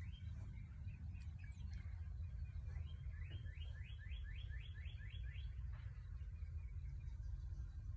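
A songbird singing a quick trill of about nine repeated high notes, starting about three seconds in and lasting under three seconds, with a few scattered calls before it. A steady low rumble lies underneath.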